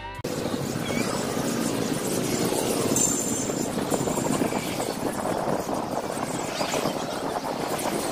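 Steady outdoor din of road traffic and wind, with a few short, faint high bird chirps about three and four seconds in.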